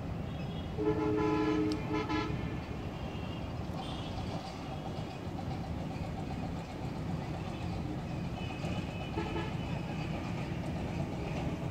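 A horn sounds about a second in: a steady two-pitch blast of about a second, then a brief second toot. A steady low background noise runs underneath.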